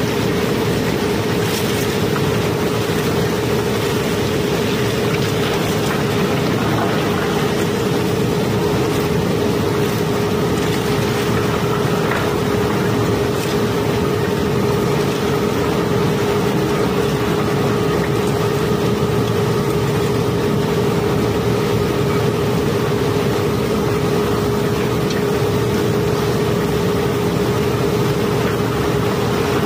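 Cobblestones clattering steadily as they are carried along a conveyor chute, over a constant machine hum.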